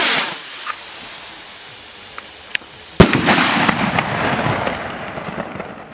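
Shell-head firework rocket: the end of its launch whoosh, falling in pitch, fades in the first moment. About three seconds in comes one sharp bang as the shell bursts, followed by a crackling hiss of burning stars that fades away.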